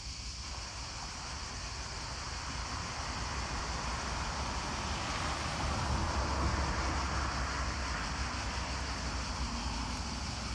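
Outdoor rushing noise: a steady low rumble of wind on the microphone, with a whoosh that swells to its loudest about halfway through and then fades.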